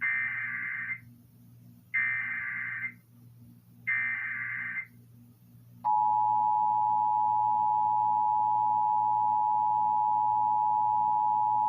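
Emergency Alert System header for a Required Monthly Test: three bursts of digital data tones, each about a second long and two seconds apart. About six seconds in, the steady two-tone EAS attention signal starts and runs on.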